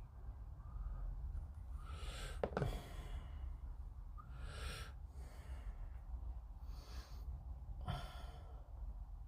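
A person breathing out heavily near the microphone, about four sighing breaths, with one light click about two and a half seconds in, over a low steady hum.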